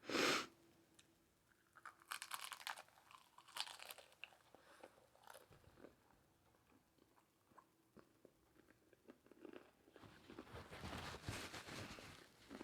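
Close-miked crunching and chewing of a hard-shell taco: a loud crunch right at the start, scattered crackly crunches over the next few seconds, then a denser stretch of chewing near the end.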